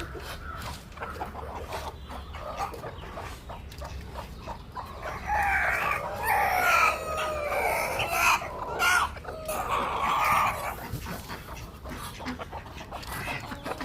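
Roosters crowing among clucking chickens. From about five to ten seconds in comes a stretch of loud crowing, with several calls overlapping.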